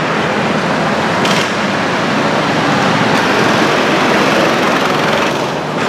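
Go-kart engines running loudly and steadily as karts drive past on the track, with a brief hiss about a second and a half in.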